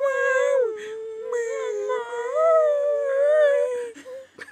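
People's voices howling in long, slowly wavering notes, imitating a dog or wolf, at times two voices at once; the howl breaks briefly about a second in and stops about four seconds in.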